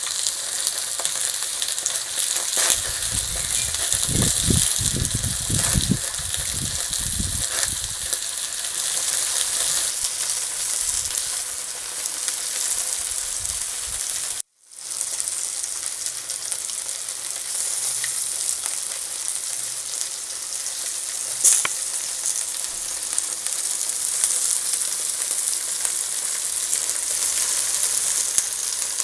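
Beef chops sizzling on a charcoal grill: a steady, high hiss of fat and juices spitting. A few low thumps in the first seconds, a short sharp crackle about two thirds in, and the sound cuts out for a moment about halfway.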